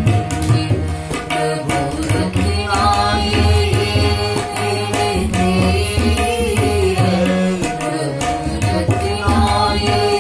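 A Hindi devotional bhajan sung by a woman and a man, with steady low sustained notes and frequent drum strokes accompanying them.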